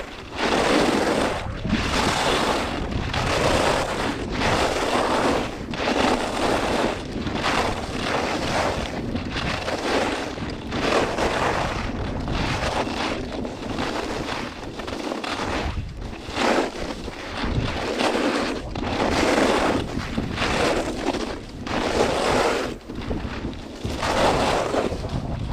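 Skis scraping their edges across hard, icy piste in quick linked turns, a surge of noise about once a second, with wind rushing on the microphone.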